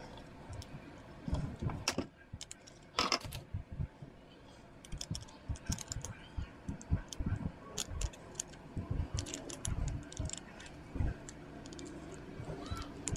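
Small plastic parts of a snap-together Panther tank puzzle model clicking, tapping and rattling against each other as they are fitted by hand. The light clicks come irregularly, with a louder clatter about three seconds in.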